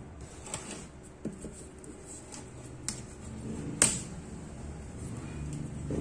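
A handful of sharp clicks and taps from a screwdriver prying at the metal frame and clips around an LCD monitor panel, the loudest a little before four seconds in.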